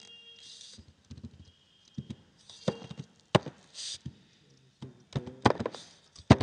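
Computer keyboard being typed on in short irregular runs of sharp key clacks, the loudest near the end.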